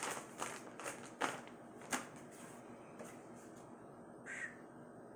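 Plastic packaging and a mailer bag being handled: a few clicks and light rustles in the first two seconds, then quieter, with one short, harsh sound about four seconds in.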